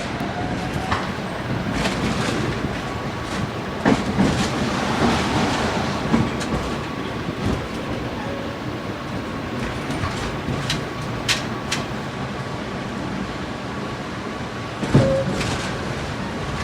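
Tram running along the rails: a steady rumble broken by several sharp clacks from the wheels, the loudest shortly before the end.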